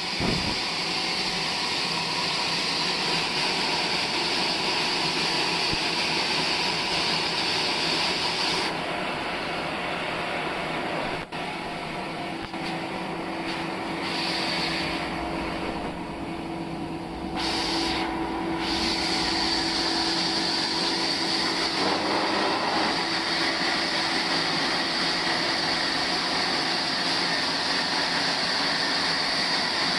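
Sawmill saw running and cutting through a log: a steady, loud mechanical hiss. The high hiss drops away for several seconds in the middle while a steady hum is heard, then the full noise returns.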